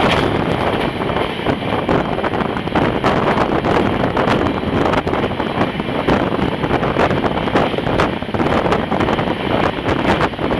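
Wind rushing over the microphone from a moving passenger train, with a steady run of sharp clicks and rattles from the wheels and coach.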